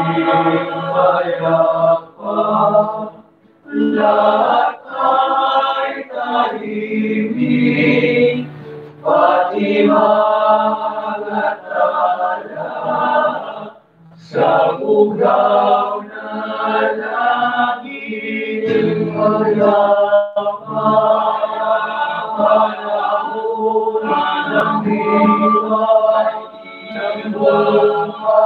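A small choir of male voices singing together at practice, holding long sung phrases broken by short pauses.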